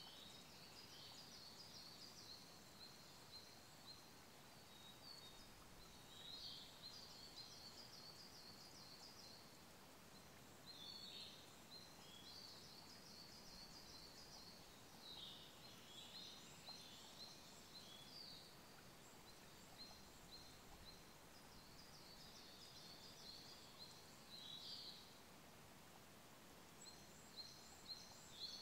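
Siberian blue robin singing short phrases, each a few thin notes running into a fast high trill and repeated every few seconds, over the faint steady hiss of a small stream.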